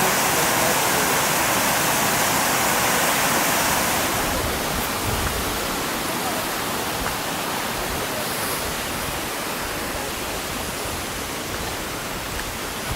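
Waterfall rushing in a steady roar of falling water, softening a little after about four seconds.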